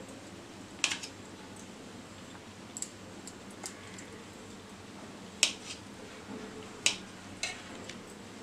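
Sharp metallic clinks on a steel plate as paneer cubes are moved about with a hand and spoon: about six separate clinks, the loudest two near the middle and toward the end.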